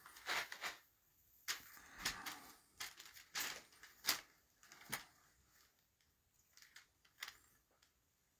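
Fabric rustling with light taps and knocks as patchwork pieces are handled and pressed flat against a quilt hanging on the wall; a scatter of short sounds that thins out after about five seconds.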